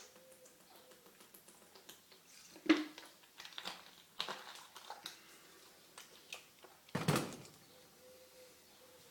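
A man gulping down a mouthful of water with his head tilted back, to stop hiccups. Three louder gulps come a second or two apart, with smaller mouth sounds between them.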